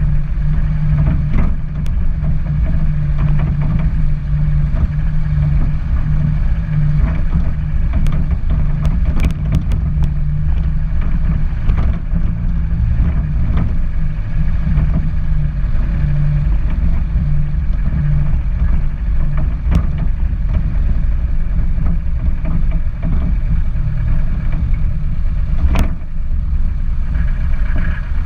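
A car driving steadily over a wet, potholed road: a steady low engine drone with road noise, and scattered small knocks and clicks, the sharpest about 26 seconds in.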